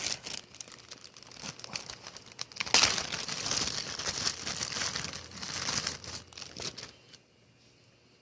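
Packaging being crinkled and torn open by hand to unwrap a small toy, a scratchy rustling that is busiest in the middle and stops about seven seconds in.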